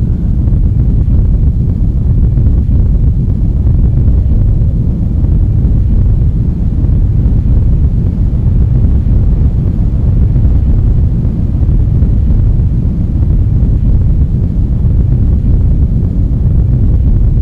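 A loud, steady low rumble with no clear pitch or rhythm, its weight in the deep bass.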